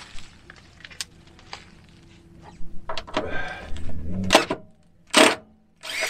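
Tool and hardware noise from work on a van's battery bank and its cables: scattered clicks and knocks, then a busier stretch of mechanical noise with two short loud bursts about four and five seconds in.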